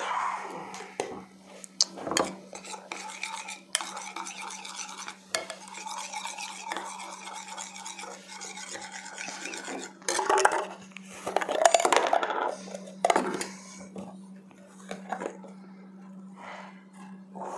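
A metal spoon stirring and scraping in a ceramic bowl, clinking against its sides, as cockatoo-chick hand-feeding formula is mixed with warm water. The scraping grows louder about ten to twelve seconds in.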